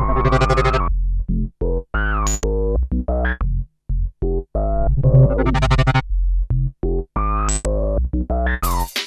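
Electronic music from a Waldorf Microwave II/XT wavetable synthesizer: short, choppy chords and notes cut by brief silences, some gliding in pitch. A drum beat comes in at the very end.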